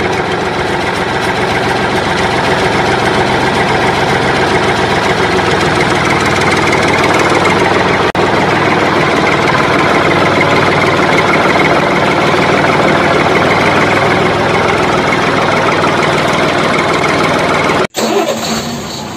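Vehicle engine sound effect running steadily, loud and even, with a momentary break about eight seconds in. It cuts off abruptly near the end, giving way to a quieter, different sound.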